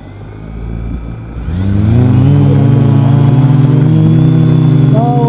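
Multicopter's electric motors and propellers spinning up about a second and a half in, the pitch rising and then holding as a loud, steady buzzing hum heard right beside the propellers: the craft throttling up to take off.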